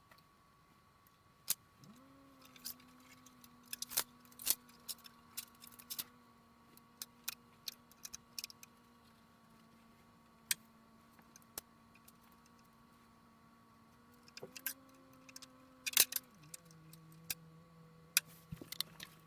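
Scattered sharp clicks and small metal clinks of screws, a screwdriver and PC parts as a motherboard is fitted into a computer case. A faint steady hum sounds under them and drops lower near the end.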